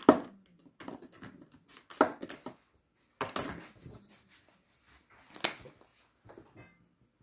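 Dual-tip markers handled and drawn on paper: irregular clicks and short scratchy strokes, a few to a second.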